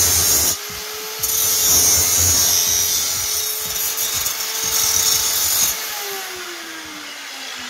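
Angle grinder grinding a steel part clamped in a bench vise, throwing sparks: a short bite at the start, then about four and a half seconds of heavy grinding. Near the end it is lifted off and switched off, its motor whine falling steadily in pitch as the disc spins down.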